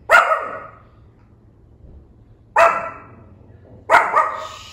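Pomeranian barking in sharp, high-pitched yaps: one right at the start, one about two and a half seconds in, and two in quick succession near the end.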